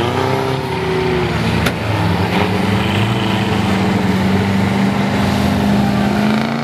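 Off-road 4x4's engine pulling under load as it drives through shallow water, with water splashing from the wheels. The engine note dips near the start, then climbs slowly over the next few seconds. A short click about a second and a half in.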